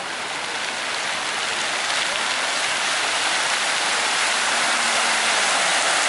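Fountain jets spraying and splashing back onto the water: a steady hiss of falling water that grows louder as the jets shoot higher.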